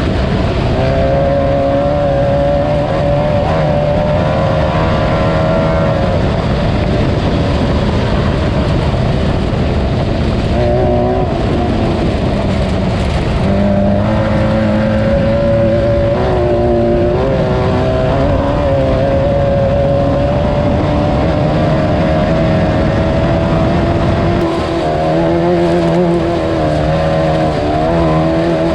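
Class 9 off-road race car's engine running hard and continuously, its pitch wavering and stepping up and down with throttle, over a steady rushing noise.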